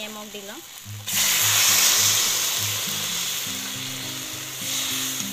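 Water hitting hot oil in an iron kadai of frying taro and elephant apple pieces: a sudden loud sizzle about a second in that slowly dies down. This is the stage where water is added for the curry's gravy.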